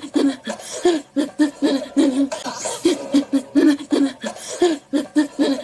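A woman's voice in a run of short, shaky, breathy pulses, several a second, like shuddering or shivering sounds, as if she were dying of hypothermia.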